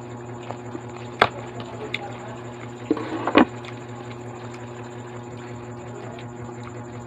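Eating and food-handling sounds over a steady low hum: a sharp click about a second in and a short, louder noise a little after three seconds as food is picked from the plate and dipped.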